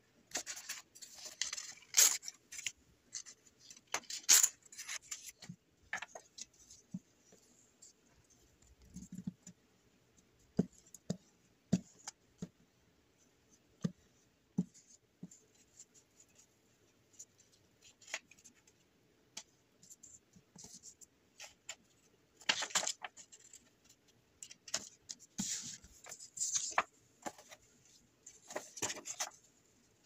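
Sheets of scrapbook paper rustling and crinkling as they are handled, slid and folded, in bursts near the start and again in the last third, with a few light taps and ticks in the quieter middle.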